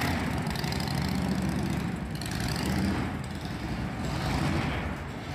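Engines of a custom twin-engine Harley-Davidson bagger built by Cory Ness, running steadily at low speed as the bike is ridden off.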